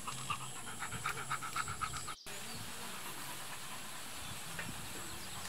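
A dog panting fast, about six short breaths a second, for the first two seconds; it cuts off abruptly, leaving only a steady background hiss.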